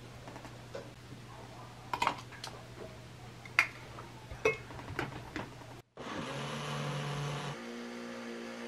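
A few sharp clicks and knocks over a low steady hum as pumpkin and milk go into a Tefal blender's jar, then, about six seconds in, the blender's motor running, its tone shifting to a different steady pitch a moment later as it purées the pumpkin.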